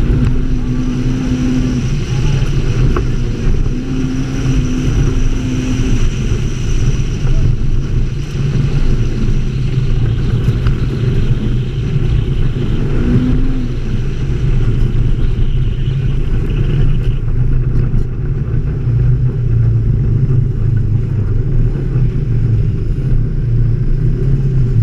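Onboard sound of an ATV's engine running steadily as it rides along a sandy trail, a continuous low drone with no pauses.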